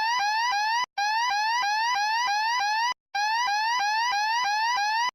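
Electronic fire alarm sounder giving a rapid rising sweep tone, about three short upward sweeps a second. It cuts out briefly about a second in and again about three seconds in.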